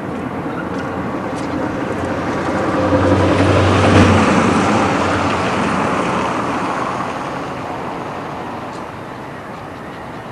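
A vehicle passing by: a broad noise that builds to a peak about four seconds in, with a low hum at its loudest, then slowly fades away.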